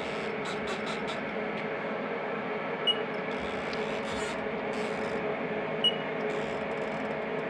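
CNC milling machine humming steadily while its spindle is jogged slowly down in Z onto the tool setter, with two short, high beeps about three seconds apart.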